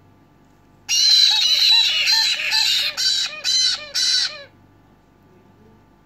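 Black-headed caique chicks begging for food as they are spoon-fed formula. A rapid run of short, loud, rising-and-falling calls starts about a second in and ends with three separate calls, lasting about three and a half seconds.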